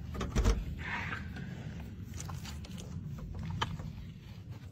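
A front door being opened: a single heavy thump about half a second in, then a few sharp clicks and scraping over the low rumble of a handheld phone microphone.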